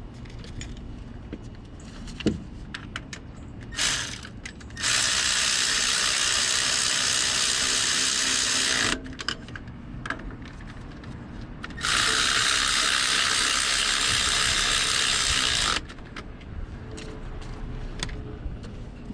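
Power ratchet running starter bolts in: a brief spin, then two steady runs of about four seconds each, with small clicks and tool clanks between them.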